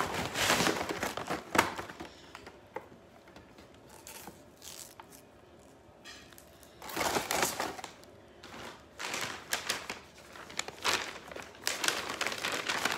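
Gift wrapping paper rustling and crinkling as it is handled, in bursts near the start and again from about seven seconds in, with a quieter stretch between.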